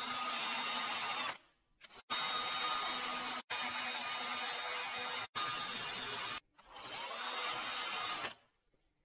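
Cordless drill spinning a wire cup brush against the threads of a steel screw, scrubbing them clean. It runs in several spells of a second or two each, with short breaks between, and stops about eight seconds in.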